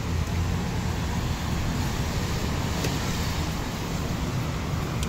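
Steady road noise inside a moving car: a low engine and tyre rumble with tyre hiss from wet pavement.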